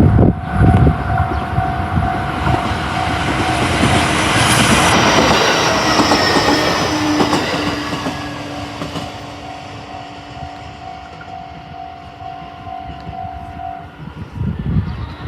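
A train passes over a Japanese railway level crossing with a rumble and clatter of wheels on the rails, loudest a few seconds in and then fading away. The crossing's warning alarm rings steadily and faintly throughout and stops shortly before the end.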